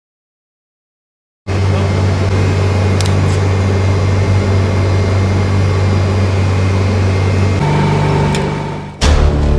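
Steady low machine hum of a running refrigeration unit, starting abruptly after about a second and a half of silence, with a couple of faint clicks. About six seconds in, a steady higher tone joins the hum, and it cuts off abruptly near the end.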